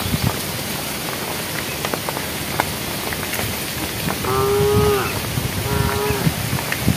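Cattle mooing twice: a call of nearly a second about four seconds in, then a shorter one just after, each held at a steady pitch and dropping at the end. Underneath runs a steady hiss with scattered clicks.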